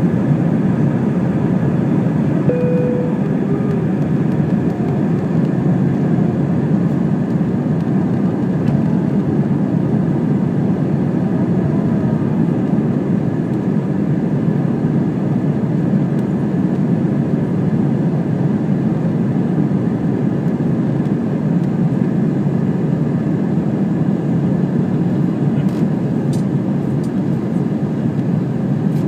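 Airbus A320 cabin noise during the initial climb after takeoff: the jet engines at takeoff power and the airflow heard from inside the cabin as a steady low rush.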